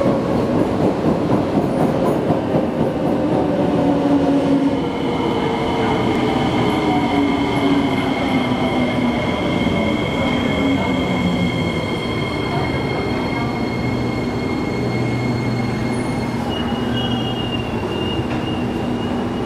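Metro train pulling into a station and slowing to a stop. A steady running rumble carries a whine that falls in pitch as the train slows, and a high steady squeal joins from about five seconds in.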